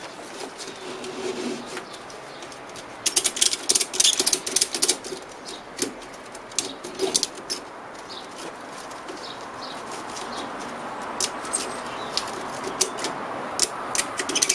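Ratchet strap being tightened: a quick run of ratchet clicks about three seconds in, then scattered single clicks as the strap is drawn up tight.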